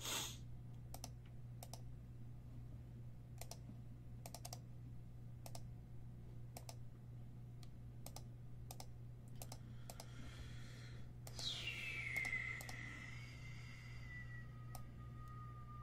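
Scattered computer keyboard and mouse clicks over a low steady hum. About eleven seconds in there is a brief rush of noise, then a high whistling tone that drops quickly and keeps sliding slowly lower.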